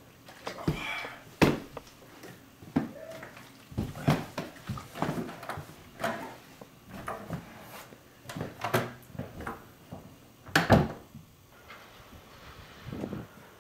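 A run of knocks and thumps from handling a wooden door, with its knob turned and the door opened, and a louder bang about ten seconds in.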